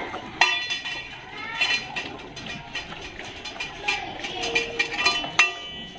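Stainless-steel dog bowls clanking on a tiled floor as dogs eat from them: several sharp knocks, each with a brief metallic ring. The loudest come about half a second in and near the end.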